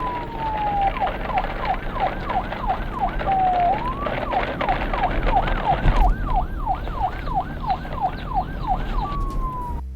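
Electronic emergency siren in a fast yelp, rapid up-and-down pitch sweeps several times a second, opening with a slow falling tone and breaking into a short rising glide about four seconds in. It ends on another falling tone, over a low rumble.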